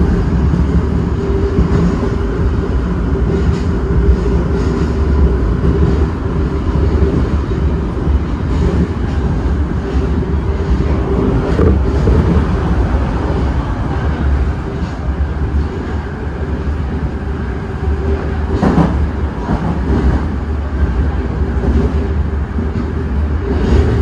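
Osaka Metro 30000 series subway train running along the line: a steady low rumble of wheels on rail with a constant mid-pitched hum. There is a brief louder rattle about 19 seconds in.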